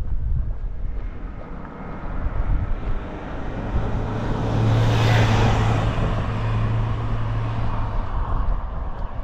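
A motor vehicle driving past close by. Its engine and tyre noise swell to a peak about five seconds in, then fade away, over a low rumble of wind on the microphone.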